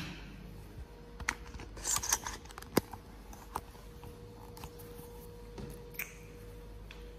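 Handling noise from a phone being held and moved about: scattered clicks and short rubbing rustles, the sharpest click near the three-second mark, over a faint steady hum.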